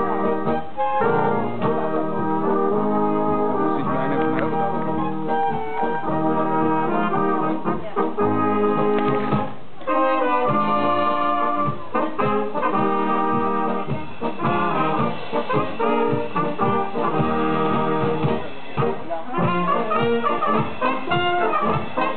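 Tyrolean brass band playing a tune, trumpets and trombones over a steady beat, with a short break near the middle before the music goes on.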